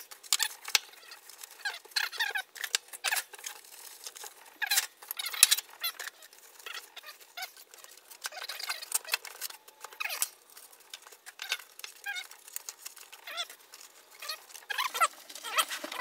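Metal hand tools such as pliers, wrenches and screwdrivers being slipped into the elastic loops and pockets of a canvas tool roll: irregular clinks, taps and rustles of cloth, busier near the end as the roll is rolled up.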